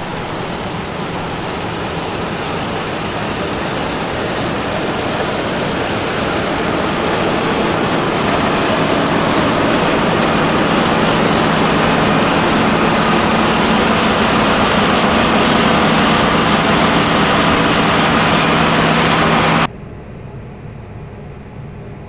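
John Deere 9770 STS combine harvester running while harvesting wheat as it passes close by: a steady engine hum under a dense rush of machine noise, growing louder over most of the stretch. Near the end the sound drops abruptly to a much quieter steady hum.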